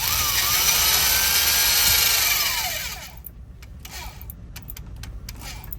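Power drill running for about three seconds, its motor whine steady and then falling in pitch as it winds down, followed by a couple of brief, fainter blips of the drill. It is drilling into a car lock that is not giving way.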